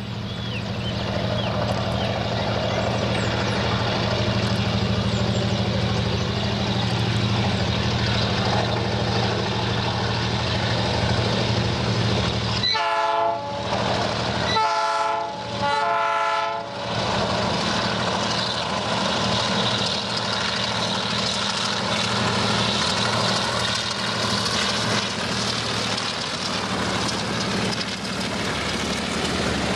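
Diesel freight locomotives running steadily with a low engine drone. About thirteen seconds in, the locomotive horn sounds three times, each blast about a second long, with the last two close together.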